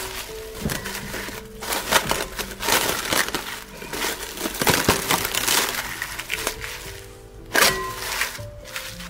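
Cling film crackling and crinkling in many quick bursts as a gloved hand presses it down over dough in a glass bowl, with a louder crackle a little past seven seconds in. Soft background music with held notes plays underneath.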